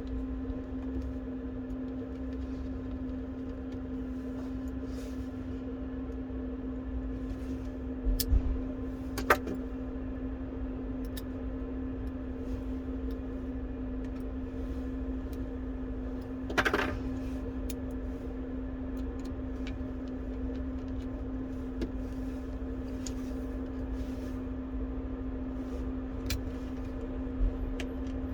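A steady electrical hum with a few small clicks and taps of small repair tools on phone parts: two sharp ticks about eight and nine seconds in, a short scrape just past the middle, and two more ticks near the end.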